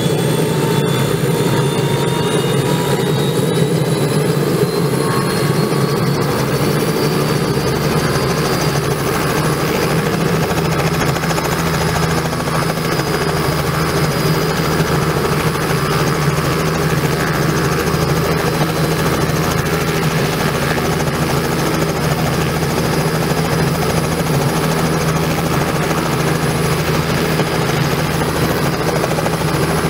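Robinson R66 helicopter running on the ground with its main rotor turning, powered by its Rolls-Royce RR300 turboshaft. A turbine whine rises in pitch over the first ten seconds or so, then holds steady over a deep, even rotor hum.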